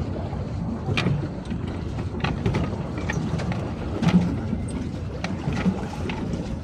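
Water sloshing and splashing around a pedal catamaran under way at sea: a steady wash with small irregular splashes.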